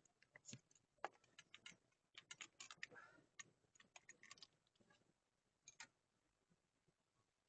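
Faint, irregular metallic clicks and ticks of hand tools being handled, likely the thread tap and its handle, with a soft brief hiss about three seconds in.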